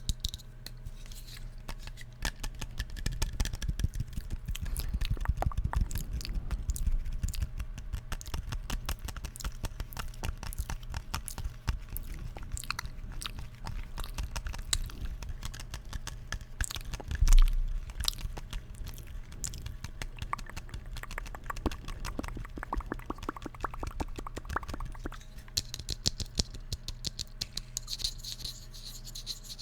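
Rapid, irregular clicking and crackling close to the microphone, with a single loud low thump about 17 seconds in.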